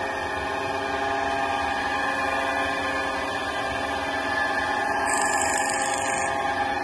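Kent surface grinder running: a steady machine hum made of several even tones, with a brief high hiss about five seconds in that lasts about a second.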